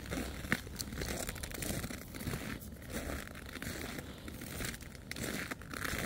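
Footsteps crunching in packed snow at a walking pace, each step a short gritty crunch.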